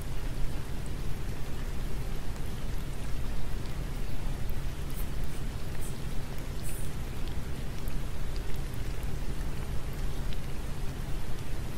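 Steady rain falling, an even hiss of rain with a few faint drop ticks here and there.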